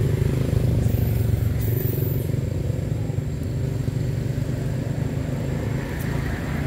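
A motor engine running steadily: a low, even rumble that eases off a little over the last few seconds.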